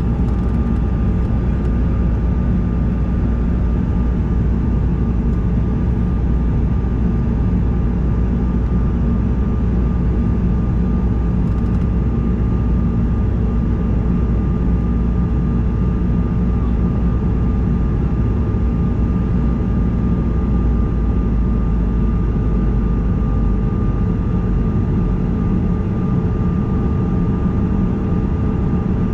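Steady in-flight cabin noise of a Bombardier CRJ-200: the drone of its two rear-mounted General Electric CF34 turbofans and the rush of air past the fuselage, a deep rumble with a few steady hum tones running through it.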